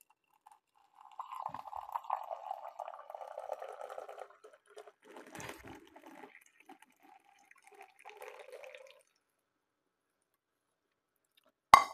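Hot milk pouring in a thin stream into a ceramic mug of coffee, a steady liquid pour for about three seconds followed by shorter spells of pouring. A sharp knock comes near the end.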